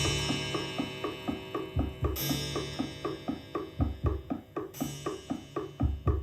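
Music with drums played back from a metal-tape recording on a Sony TC-FX707R cassette deck: a fast run of repeated percussive notes over a drum kit, with cymbal crashes about two seconds in and again near five seconds.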